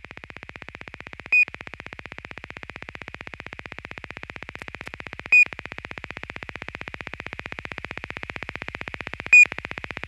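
Opening of an instrumental noise-rock track: a rapid, even electronic pulsing with a high buzz, slowly growing louder, cut three times by a short, loud high beep about every four seconds.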